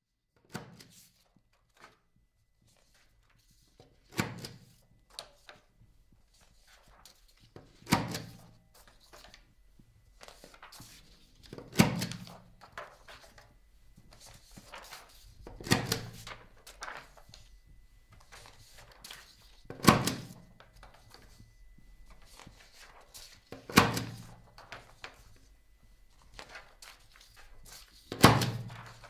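A heavy thunk repeats about every four seconds, seven times, each with a short echo, with lighter knocks and clicks in between. A faint steady high tone runs beneath.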